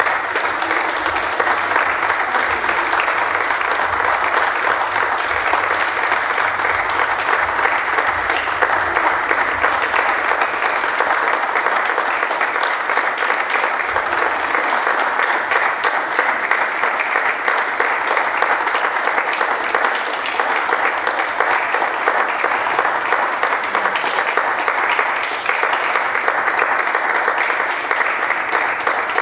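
Audience applauding steadily, many hands clapping in a dense, even patter.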